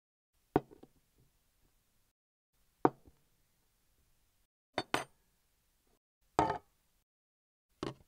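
Foley recordings of small objects being set down or dropped on a wooden surface: five separate short impacts with silence between. They come about half a second in, near three seconds, as a quick double hit around five seconds, as a slightly longer one around six and a half seconds, and near the end.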